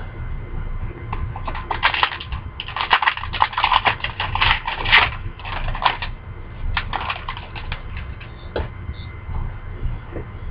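Trading cards and a card pack being handled: bursts of quick, crisp clicks and rustling for several seconds, then a shorter burst and a few single clicks.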